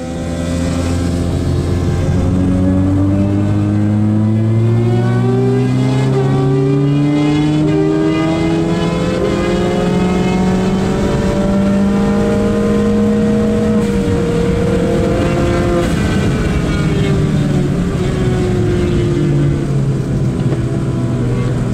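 Turbocharged Ford Fiesta ST engine heard from inside the cabin, pulling hard under load with its pitch rising slowly for about fourteen seconds, then dropping as it comes off the throttle, and climbing again near the end.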